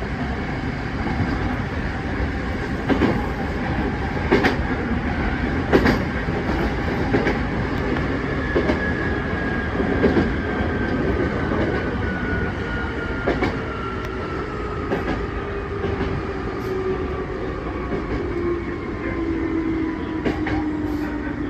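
Hankyu 3300 series electric train heard from inside, behind the driver's cab: a steady running rumble with wheels clacking over rail joints. From about the middle a whine falls slowly in pitch as the train slows into a station.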